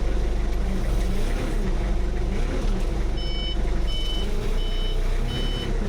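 A vehicle's engine running steadily, with its reversing alarm starting about three seconds in: four even beeps, roughly one every 0.7 s, as it backs up.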